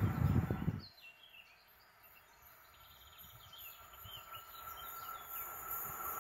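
Birds chirping over the faint, steadily growing rumble of an approaching train, an EP09 electric locomotive hauling an express. A loud low rumble cuts off abruptly about a second in.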